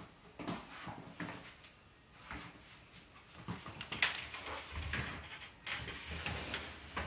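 Scattered knocks and clicks, with sharp ones about four seconds in and again near six seconds. A low hum starts about five seconds in.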